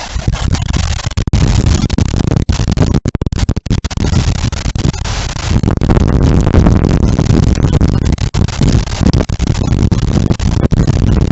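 Storm-force wind gusts buffeting the microphone: a loud, heavy rumble with brief drops in level.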